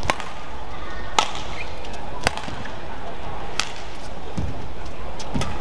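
Badminton rally: a shuttlecock struck back and forth by rackets, four sharp cracks about a second apart, followed by two low thuds near the end.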